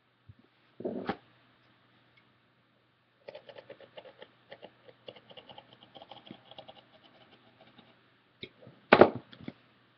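Work on a strip of duct tape with a ruler and craft knife. A thump comes about a second in, then several seconds of fine, irregular crackly ticking as the tape is cut and handled, and a sharp knock, the loudest sound, near the end.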